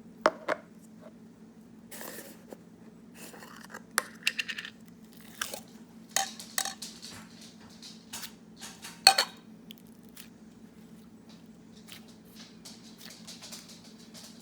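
Buttery foam slime being squished and poked by hand, giving irregular crunchy crackles and sharp pops, the loudest about nine seconds in, over a steady low hum.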